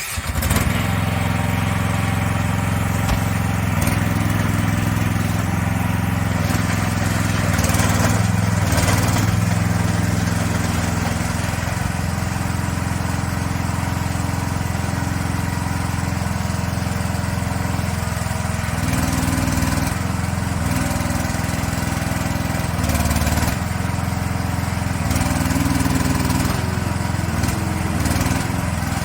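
Small engine of a CFG MH12RX mini excavator running steadily, starting abruptly at the beginning and swelling in level a few times.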